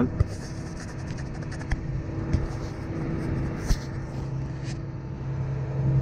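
New Holland tractor's engine running steadily while it pulls a plough, heard from inside the cab, with a few short knocks and rattles.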